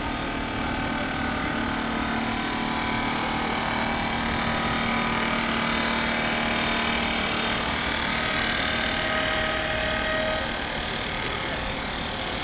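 Steady mechanical hum of running machinery. A low held tone runs through the first half, and a higher tone joins for about two seconds past the middle.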